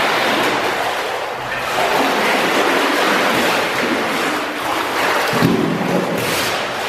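Water splashing and sloshing as a young hippopotamus thrashes about in a pool, playing with a wooden log, with a heavier splash about five seconds in.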